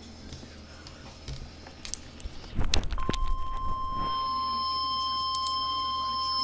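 Faint radio hiss, then a short burst of loud crackling clicks about two and a half seconds in. About three seconds in, the steady NOAA Weather Radio warning alarm tone (1050 Hz) starts and holds, announcing a new warning.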